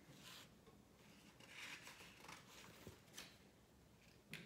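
Near silence with faint paper rustling as the pages of a picture book are handled and turned.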